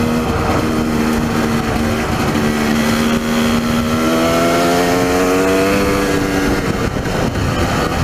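Dirt bike engine running steadily under the rider, its revs climbing about four seconds in and easing back around six seconds, over a rushing noise of wind across the microphone.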